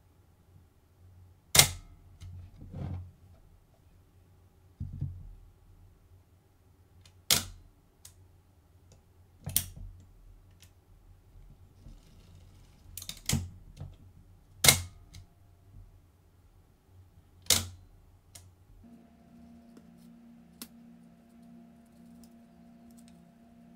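The partly disassembled Hasselblad 2000FC's winding and mirror mechanism, cycled by hand: the crank is wound and the mechanism trips with a sharp mechanical snap, six times, with softer winding clicks in between. A faint steady hum takes over for the last few seconds.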